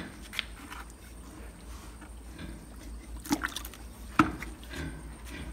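Water from a hose trickling into a bucket, with a few sharp knocks, the loudest about three and four seconds in.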